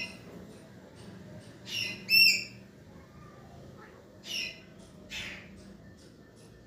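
Alexandrine parakeets giving several short calls, the loudest and clearest a little over two seconds in.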